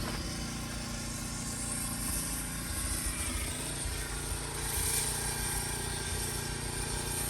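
An engine running steadily at idle, with a constant low hum.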